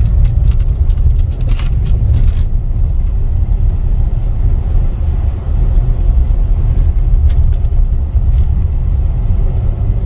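Car driving on an unpaved dirt road, heard inside the cabin: a steady low rumble of engine and tyres on the rough surface, with a few light knocks and rattles in the first couple of seconds.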